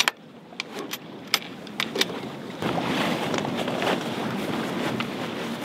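A few sharp clicks in the first two seconds, then steady rustling and crumpling of jib sailcloth as the lowered headsail is gathered in on the foredeck of a small sailboat.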